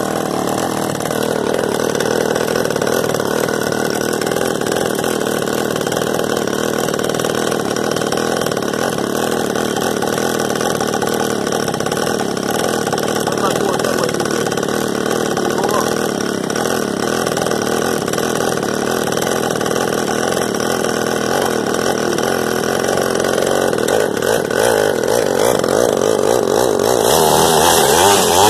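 Small engine of a mini quad ATV idling steadily while its carburetor is being adjusted, then revving up and getting louder near the end.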